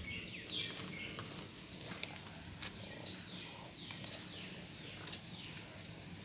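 Repeated short, high-pitched animal chirps, each falling in pitch, with scattered sharp clicks between them.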